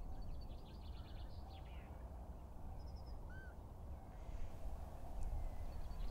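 Birds calling outdoors: a quick run of high, rapidly repeated calls about half a second in and again near the end, and a few short whistled notes about three seconds in, over a steady low rumble.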